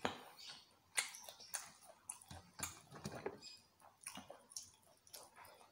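Close-up chewing of cireng, a chewy fried tapioca snack: faint, irregular mouth clicks and smacks, one to three a second.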